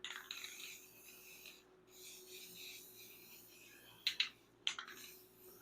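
An aerosol spray can being handled and readied: faint rustling and rubbing, then two sharp clicks a little over half a second apart near the end.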